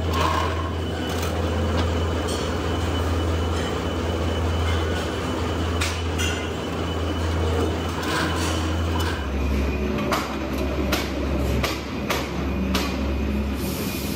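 Three-roll plate bending machine running with a steady low hum while rolling a steel sheet into a cylinder body, the hum shifting a little about two-thirds of the way through. Scattered metallic clanks and ticks from the sheet and rollers.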